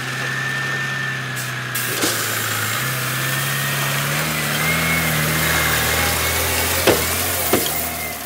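Kenworth dump truck's diesel engine running steadily at low speed as the truck creeps forward with its bed raised, spreading gravel from the tailgate, with a constant hiss of gravel pouring out. Two sharp knocks come near the end.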